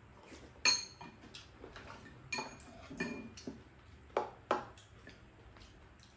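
Metal chopsticks and a spoon clinking against ceramic bowls and a pan while eating: a scattered handful of sharp clinks with a short ring, the loudest under a second in and two more close together past the middle.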